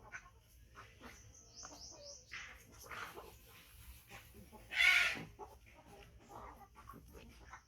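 Animal calls: a quick run of high chirps about a second and a half in, then one loud squawk about five seconds in.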